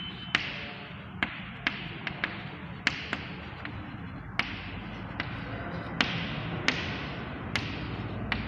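Chalk writing on a chalkboard: sharp taps as the chalk meets the board, each followed by a short scratchy stroke, coming irregularly about once a second.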